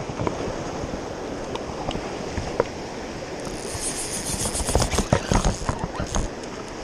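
Rushing river water and wind on the microphone throughout. Near the middle a fishing reel buzzes for about two seconds while a hooked fish is being played, with heavy bumps of the rod and hands against the camera mixed in.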